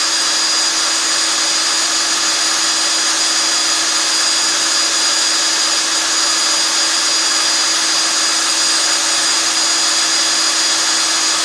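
Black & Decker electric drill running at a steady speed, turning a billiard cue shaft in a Lego-built lathe, with an even, unbroken whine.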